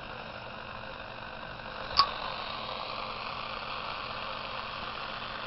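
Pocket radio hissing with steady static as it picks up the electrical interference of a light-triggered pulse motor's coil beside it. One short click about two seconds in.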